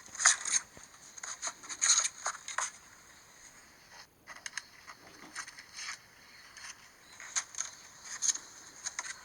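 Irregular crackling, clicking and scraping glitch noise from an iPhone's speaker, with a faint steady high whine underneath: a malfunction that the phone's owner could not stop.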